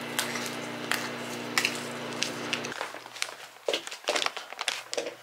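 A steady low hum with small crackles as a sachet is handled. After about two and a half seconds the hum stops, and plastic mailer bags rustle and crinkle as a parcel is unpacked.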